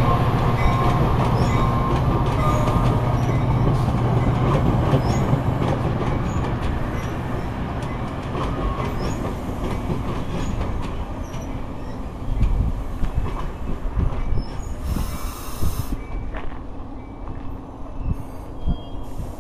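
Metra bilevel commuter cars rolling slowly and drawing to a stop: a steady train rumble that fades, with wheel clicks and light squeal from the rails. There is a brief hiss about 15 seconds in.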